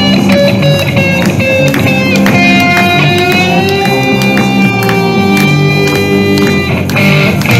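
Live instrumental rock: an electric guitar played through an amplifier, holding long lead notes and bending one upward about halfway through, over a steady drum beat.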